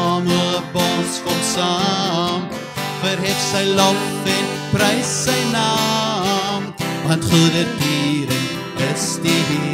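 A man singing an Afrikaans hymn to his own strummed acoustic guitar.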